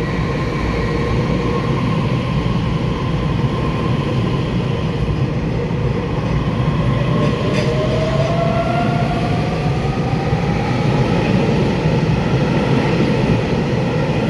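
A twelve-car EMU3000 electric multiple unit pulling out and accelerating: steady rumble of the cars rolling by, with the traction motors' whine rising in pitch as it gathers speed.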